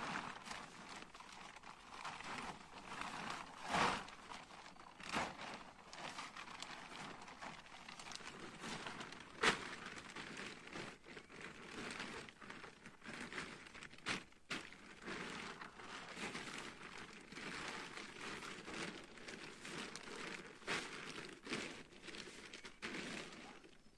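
Black plastic tarp crinkling and rustling as it is handled, shaken out and folded, with sharper crackles now and then; it stops just before the end.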